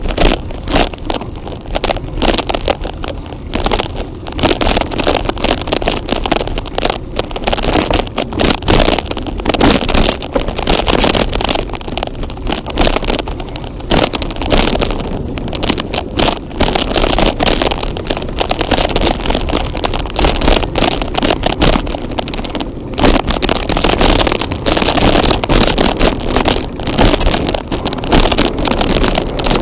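Vehicle driving over a rough dirt track: steady running and road noise with frequent knocks and rattles from the bumps.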